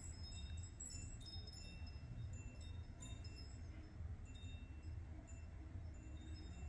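Faint tinkling of small metal chimes: scattered short high notes that recur at a few fixed pitches, over a low steady hum.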